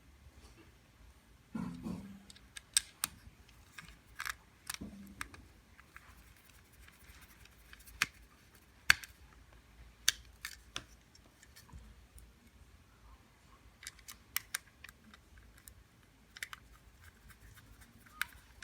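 Small hardware being handled while screws are fitted to a doorbell: scattered sharp clicks and light taps at irregular spacing, with a couple of soft thumps.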